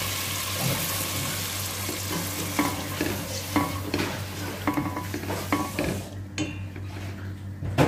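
Wooden spatula stirring chicken pieces in a stainless steel pot of hot oil and freshly added water, over a steady sizzle that dies down about six seconds in. The spatula knocks and scrapes against the metal side of the pot several times, ending with one sharp knock.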